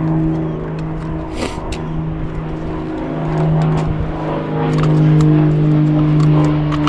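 A loud, steady droning hum that swells about halfway through, like a World War II fighter plane diving overhead.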